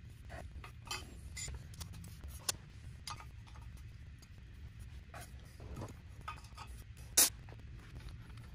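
Light metallic clicks and clinks from a hook spanner being fitted to and turning a slotted ring nut on an old V-twin engine's cylinder, with one sharp click standing out about seven seconds in, over a low steady hum.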